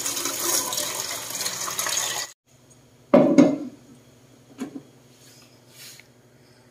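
Water pouring in a stream into a stainless steel stockpot, cutting off sharply a little past two seconds in. About a second later comes a loud clunk as the pot is set on the stove, then a lighter knock.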